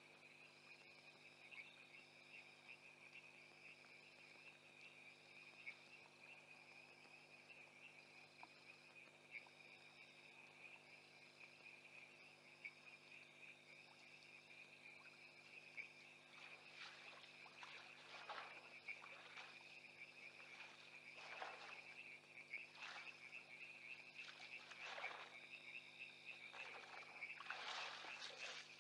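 Faint night chorus of insects and frogs: a steady high trill with a softer call pulsing about once a second above it. From about halfway there is a run of short raspy bursts, one to two seconds apart.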